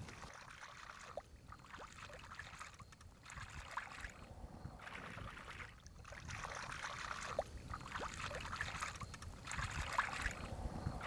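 Water swishing and trickling as hands work a blue object back and forth in shallow water, in repeated swishes about every second and a half.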